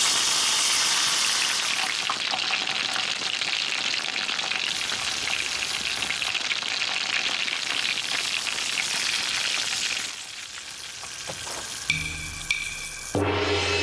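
Dough sticks (youtiao, Tianjin guozi) frying in hot oil in a wok: a loud, steady sizzle that eases off about ten seconds in. Music comes in near the end.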